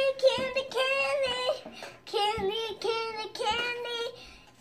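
A young boy singing in a high voice: a run of held sung notes, mostly on one pitch, with a short break in the middle, fading out about four seconds in.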